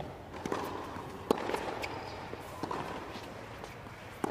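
Tennis ball being hit during a point: a few sharp pops, the loudest about a second in and another at the end, over the steady background noise of the crowd and court.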